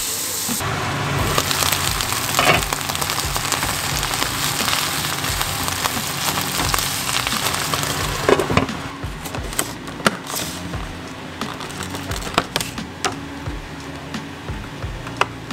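Kale frying in a pan, a steady sizzle that stops about halfway through. Then come a few light clicks and taps.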